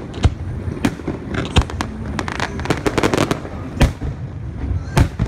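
Aerial firework shells bursting: a string of loud single bangs a second or more apart, with clusters of quicker crackles between them.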